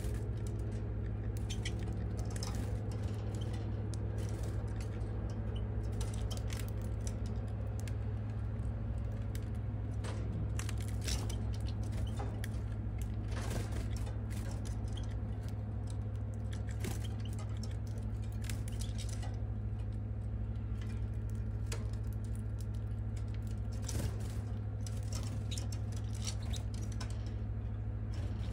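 Scattered small, irregular clicks and ticks over a steady low hum.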